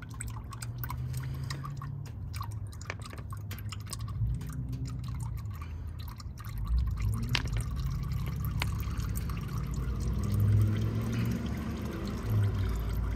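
Engine oil trickling in a thin stream from the open drain plug hole of a 2018 Subaru Impreza's oil pan into a plastic drain pan full of oil, with many small irregular splashes and drips. The last of the old oil is draining out.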